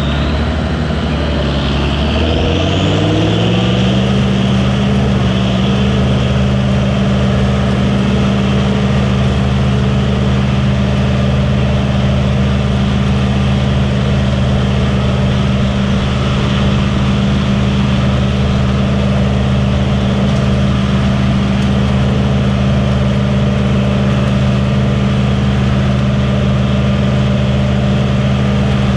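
Turbocharged tractor engine speeding up over the first few seconds, then running steadily at high speed under load while pulling a stalk chopper.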